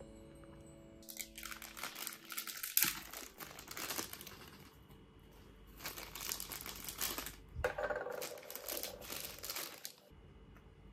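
Clear plastic wrapping bag crinkling in bursts as a small plastic blind-box piece is unwrapped and handled. The crinkling stops shortly before the end.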